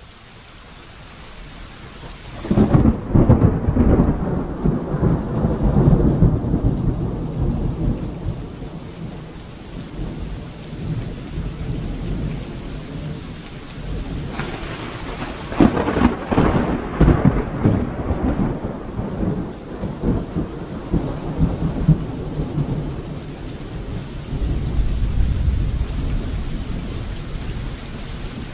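Steady rain during a thunderstorm, fading in at the start. A long crackling roll of thunder begins a few seconds in, a second crack and rumble comes about halfway through, and a lower rumble swells near the end.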